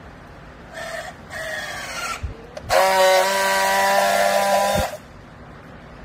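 Battery-powered handheld strapping tool tightening a plastic strap around a bale: two short runs of its motor, the second falling slightly in pitch as the strap draws tight, then a louder steady buzz for about two seconds as it friction-welds the strap, cut off with a click.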